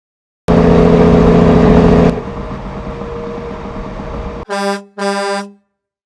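A heavy engine starts suddenly and runs loud, then drops to a quieter steady run after about two seconds. Near the end comes two short horn honks.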